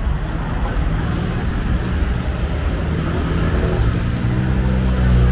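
Street traffic with a motor scooter passing close, its engine hum growing louder toward the end over a steady rumble of other vehicles.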